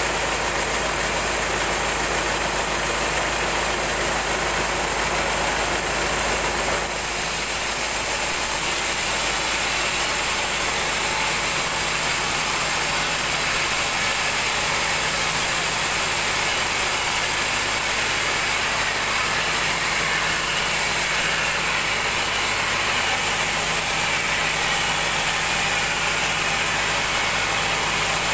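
A 36-inch band sawmill running steadily, its blade ripping through a large mahogany log to cut off a long plank.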